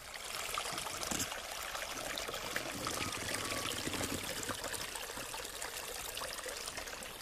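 Water trickling and gurgling steadily as it spills through a beaver dam of sticks and mud into a small pool.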